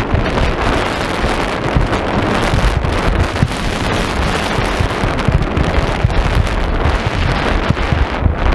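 Wind buffeting the microphone of a skier going downhill, a loud low rumble, mixed with the steady hiss of skis sliding over packed snow.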